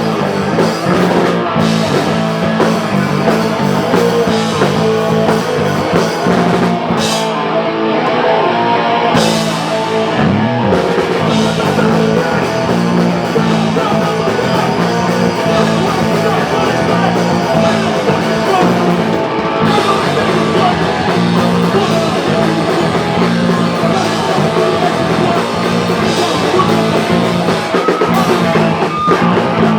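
Live rock band playing loud and steady, with electric guitar and a drum kit.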